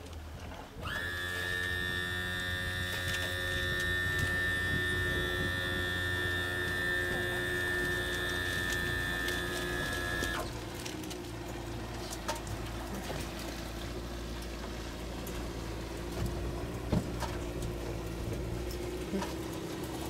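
A steady mechanical whine over a low hum, from a small motor. The higher part of the whine starts abruptly about a second in and cuts off about ten seconds in, leaving a lower steady tone and the hum.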